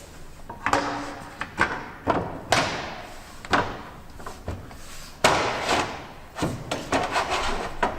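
Metal roof flashing being handled and fitted into place: a series of knocks, clatters and scrapes, six or seven in all, the loudest about five seconds in.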